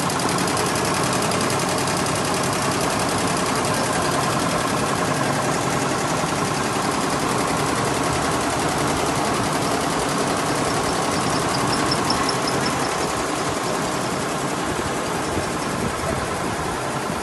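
Industrial embroidery and sewing machines running together on a factory floor: a steady mechanical din with a fast, even rattle of needle strokes.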